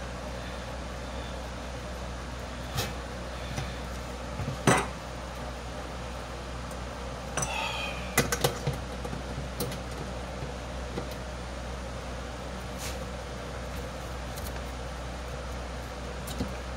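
Adjustable wrench clinking against the nuts and bolts of a small blower fan's metal housing as they are turned and tightened: scattered metallic clicks and knocks, the loudest about five seconds in, with a brief squeak and a quick cluster of clicks around eight seconds.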